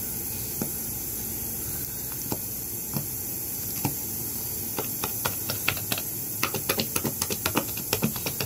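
Long acrylic fingernails clicking and tapping against a small plastic bottle and its flip-top cap while it is being pried at. A few scattered clicks at first, then a quick, irregular run of several clicks a second in the last few seconds.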